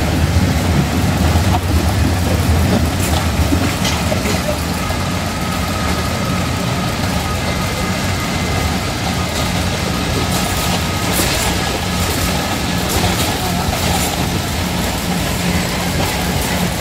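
Kiddie caterpillar roller coaster running, its train of cars rumbling steadily around the rails, with scattered clicks and faint fairground voices behind it.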